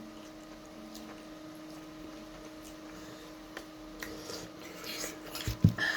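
Person eating momos: quiet chewing with scattered soft mouth and utensil clicks, a few more near the end and a low thud just before it ends, over a steady low hum.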